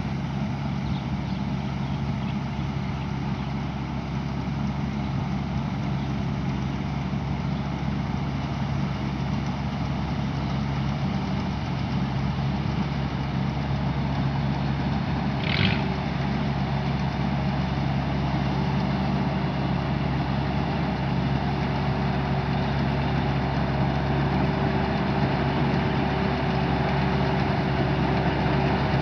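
Isuzu 6HK1 inline-six diesel engine of a Tamco S9000 combine harvester running steadily, slowly growing a little louder. A brief high chirp sounds about halfway through.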